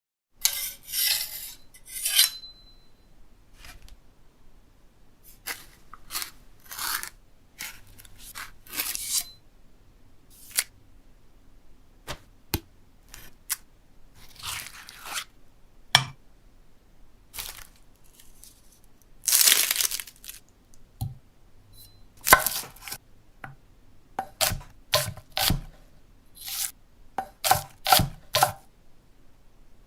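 Food being handled and prepared for guacamole: irregular scrapes, crinkles, tears and light knocks, with one longer rustling scrape about two-thirds in.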